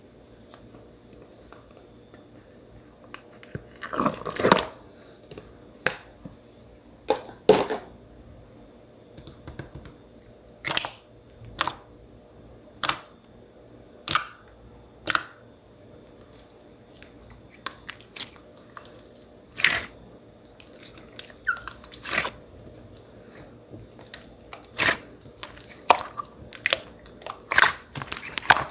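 Clear water-jelly slime being handled, making short, sharp sticky pops and squelches at irregular intervals, about one every second or two, coming more often near the end.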